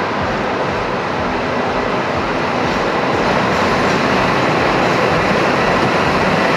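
Logging train on the Englewood railway running along the track, a steady noise of wheels and rolling cars that grows a little louder about three seconds in.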